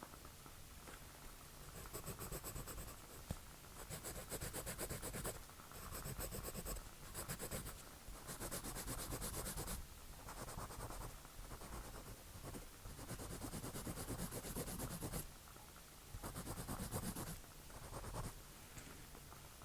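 Drawing strokes scratching across paper, in a run of bursts each about one to two seconds long with short pauses between.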